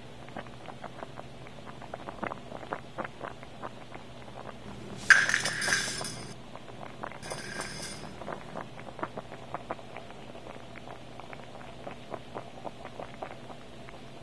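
Water boiling in a stainless steel saucepan, a constant crackle of small popping bubbles. About five seconds in, dry spaghetti clatters into the pan with a sharp rattle, and a shorter clatter follows a second later.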